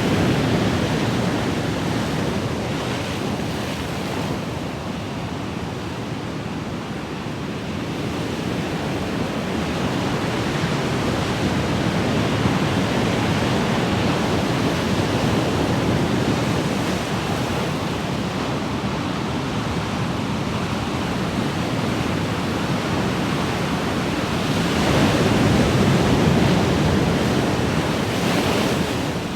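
Ocean waves, a steady rushing surf that slowly swells and eases, with the loudest wave wash near the end.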